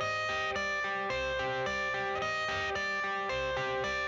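Background music: an instrumental intro led by a plucked, electric-sounding guitar playing a repeating pattern of notes over a steady low beat.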